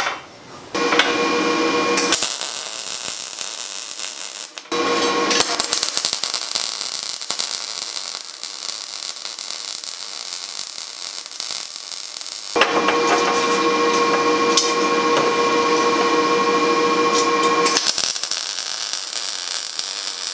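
MIG welder's arc sizzling and crackling on mild steel in three runs, the longest about seven seconds. Between the runs a steady humming tone is heard, louder than the welding.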